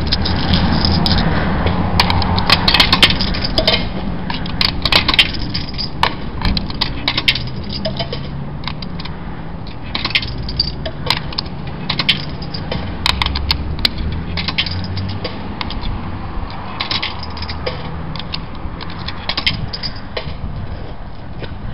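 Coins clinking and dropping, one after another, into a self-serve car wash's coin box, many irregular sharp clicks. A low steady rumble runs underneath.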